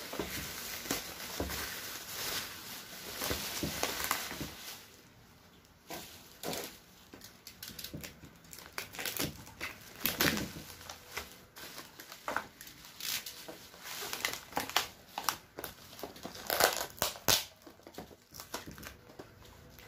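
Black plastic bubble-wrap packaging crinkling and rustling under the hands, then irregular crackles and light clicks as it is cut open with a utility knife and the small product boxes inside are handled. Dense crinkling for the first few seconds, briefly quieter about five seconds in, with the loudest crackles near the end.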